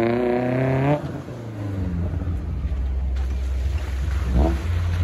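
Maruti Suzuki Gypsy 4x4's engine running as it drives across a stony riverbed, with its tyres splashing through shallow water in the second half. A drawn-out, pitched voice-like tone sounds over it in the first second.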